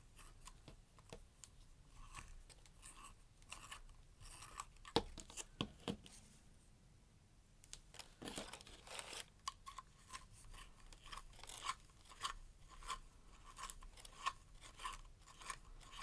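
Create-A-Color Mega handheld pencil sharpener shaving a wax-based Caran d'Ache full blender pencil: a run of short, faint rasping scrapes as the pencil is turned against the blade, with a pause about six seconds in.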